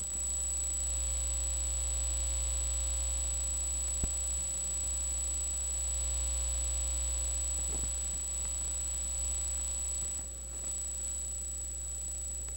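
Steady electrical hum with a faint buzz and a thin high whine from a Pyle Pro PDMIK-1 dynamic microphone whose cable's hot wire is not connected at the mic end, so the line picks up only hum instead of sound. A faint click about four seconds in and another near eight seconds.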